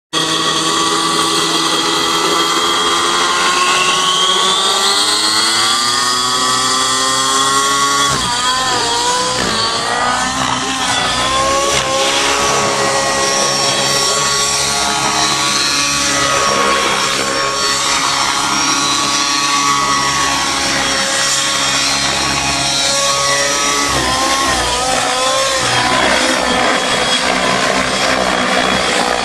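T-Rex 700 radio-controlled helicopter spooling up, its whine rising steadily in pitch for several seconds, then flying with the pitch dipping and rising as it manoeuvres.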